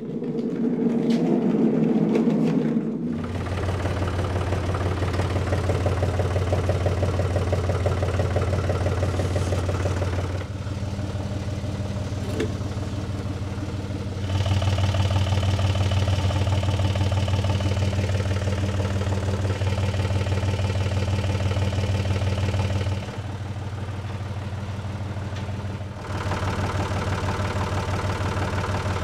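Compact utility tractor's engine running steadily near idle, its level stepping up and down a few times as it is throttled while the front loader's forks lift and carry a load.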